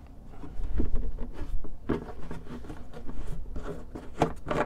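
Red plastic gas can cap being twisted on the can's threads: irregular rubbing and scraping with scattered clicks of plastic on plastic.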